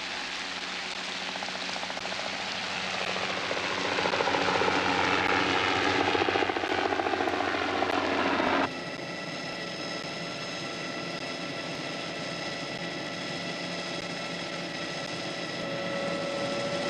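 Helicopter flying overhead, its rotor beating in a fast rhythm, growing louder and falling in pitch as it passes. About eight and a half seconds in, this cuts abruptly to the steady drone of the helicopter heard from inside its cabin, with several high steady tones.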